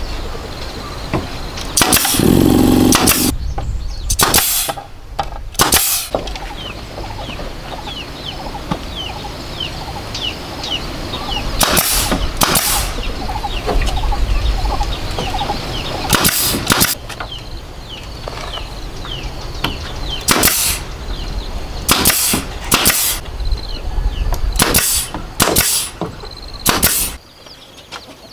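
Pneumatic brad nailer firing nails into bamboo lattice strips: about a dozen sharp shots at irregular intervals, in pairs and singles, with a longer, louder burst about two seconds in. Birds chirp and a steady low hum runs underneath.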